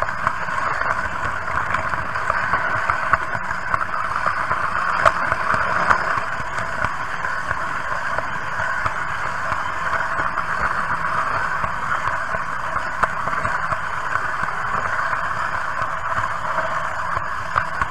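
Running noise of a Märklin H0 model train carrying the camera: a steady whir from the motor and the wheels on the track, with a few light clicks.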